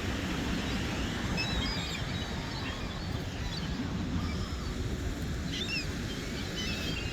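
A steady low rumble of surf and wind at the shore, with scattered short bird chirps.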